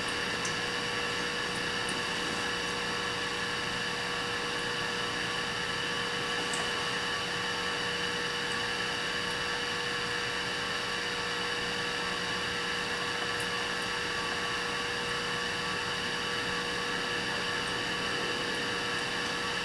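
Steady hiss and constant hum of a welding torch running while thin steel is welded, with a few faint ticks.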